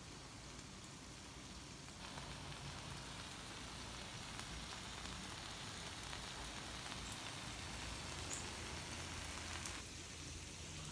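Shrimp, spaghetti noodles and a fried egg sizzling on a hot Blackstone flat-top griddle: a steady hiss that grows louder about two seconds in and falls back near the end.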